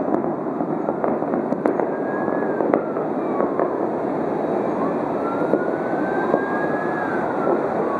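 Distant aerial fireworks popping every second or so over a steady background noise, with a tone that glides slowly up and then down in pitch in the second half.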